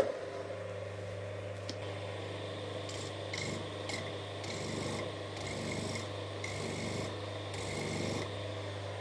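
Coborn Type 1 power scraper starting up, its electric motor and flexible drive shaft humming steadily. The reciprocating blade then makes about six short scraping strokes on the vise's cast base, breaking up the surface on a first pass.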